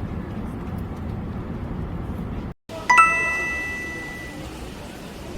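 A steady low rumble that cuts off suddenly about two and a half seconds in, then a bright two-note chime, lower note then higher, that rings out and fades over about a second and a half.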